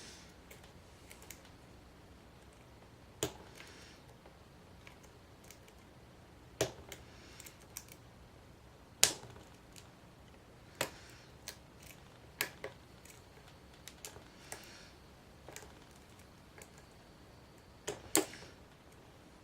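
Lock picks and tension wrench clicking in the keyway of an ACE 2-inch rekeyable pin-tumbler padlock with serrated spool pins: irregular sharp metallic clicks a few seconds apart, the loudest about nine seconds in and a quick pair near the end. The lock is resisting, the picks working hard against the pins.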